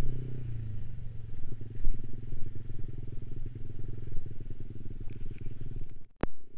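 Yamaha Aerox 155 scooter's single-cylinder engine running at low speed on a dirt track, its pitch easing slightly about half a second in. Near the end the sound cuts out suddenly with a single click.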